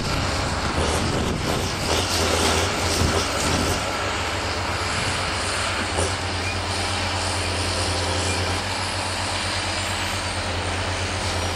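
A Gremo forestry machine's diesel engine running steadily with a constant low hum while its hydraulic crane loads logs, with a single short knock about six seconds in.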